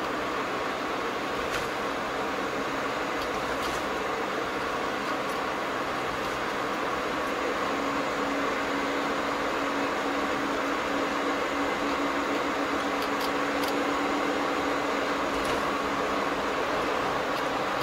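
Steady road and engine noise inside a car's cabin while driving, with a low hum that comes in about halfway through.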